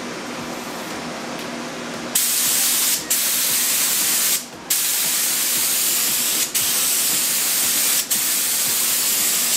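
A steady low hum, then about two seconds in a compressed-air gravity-feed spray gun starts hissing loudly as it sprays tinted Raptor bed-liner coating. The hiss breaks off briefly four times as the trigger is let go and pulled again, the longest pause near the middle.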